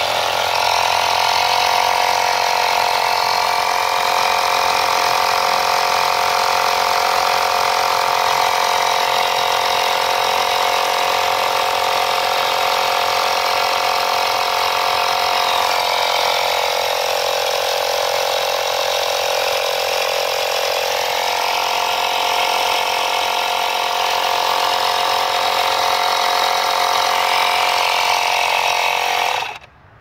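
12V tire inflator's small compressor running steadily, pumping fogger smoke into the intake to pressurize it for a vacuum-leak smoke test. Its pitch sags for a few seconds midway, and it shuts off just before the end.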